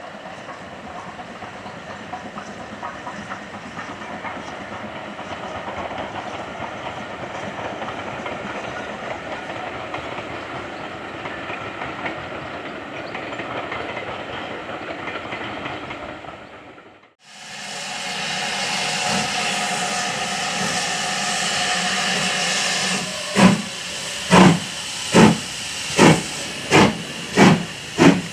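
BR Standard 4 tank locomotive 80078 and its train running past, a steady rumble of wheels on rail. After a cut, a loud hiss of steam with a steady tone in it from GWR Manor-class locomotive 7812. About six seconds later its exhaust chuffs begin, getting slightly quicker as it starts away.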